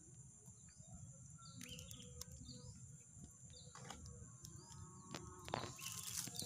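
Faint rural ambience: a steady high insect drone, with a bird giving short chirps over and over. Light rustles and clicks from a wire-mesh net being handled grow louder near the end.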